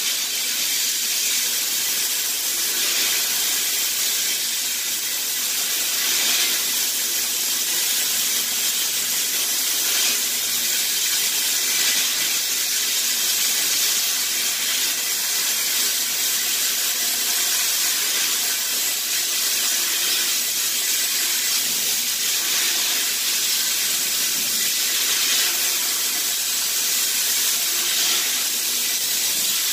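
Sandblast cabinet nozzle blasting 80-grit aluminum oxide at 80 PSI onto a PVD-coated gun barrel: a steady hiss of air and abrasive, working to strip the hard coating.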